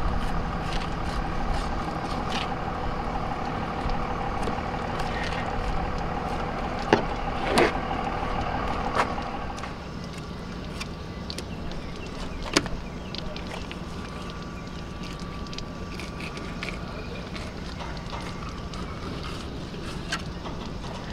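Steady engine hum with a whining tone that fades out about halfway through, and a few sharp clicks.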